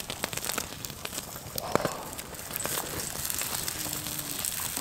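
Irregular crackling and crinkling, with many sharp clicks: a cooking campfire crackling while food and its packaging are handled.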